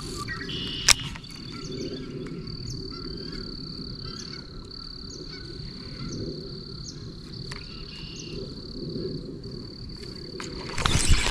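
Frogs calling at a pond: a steady high trill that breaks off every second or so, with short chirps over it. A single sharp click about a second in, and a louder rush of noise starting near the end.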